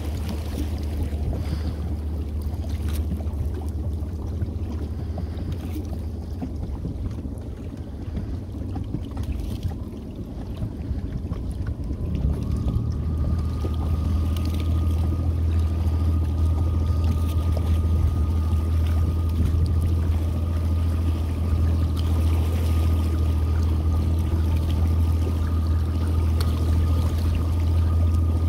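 Boat motor running steadily at low speed. About twelve seconds in it gets louder and a steady high whine joins the low hum.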